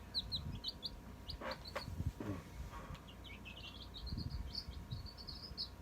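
Week-old Cochin Bantam chicks peeping: many short, high peeps, coming thick and fast in the second half, with a few soft low bumps.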